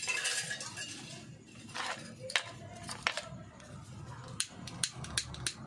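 Hands handling wires and plastic heat-shrink tubing: rustling at first, then a run of short sharp clicks, about three a second, in the second half.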